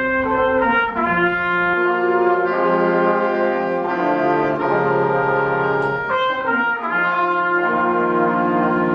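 School concert band playing held chords with the brass prominent, the harmony moving to a new chord every two or three seconds.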